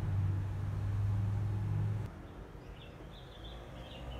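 A steady low hum stops suddenly about halfway through. Faint high chirps, like small birds, follow over a quiet background.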